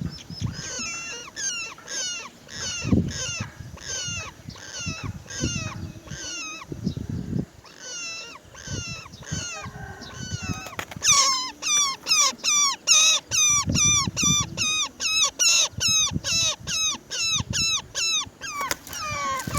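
Roller birds calling at a nest box: a long series of short, bending calls about two a second, growing louder and quicker about eleven seconds in.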